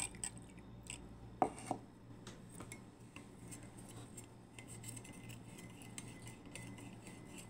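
Stainless steel kitchenware being handled: a sharp metal knock from the skimmer and steel pot about a second and a half in, then light metallic taps as the steel lid is set on the pot, over a steady low hum.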